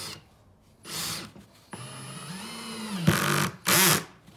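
Einhell TE-CD 18 Li-BL brushless cordless drill, set as a screwdriver at a low clutch setting, driving a wood screw into soft boards. Two short trigger bursts, then a longer run of motor whine that rises and falls in pitch, ending in two loud harsh bursts.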